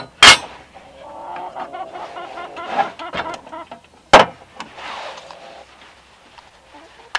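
Metal clanks as a round metal plate is handled and set down on a portable gas camping stove: two loud knocks about four seconds apart, with a fainter wavering pitched sound between them.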